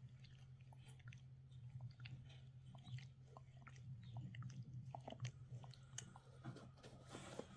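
A husky faintly chewing and gnawing on a bone: irregular small clicks and crunches over a steady low hum.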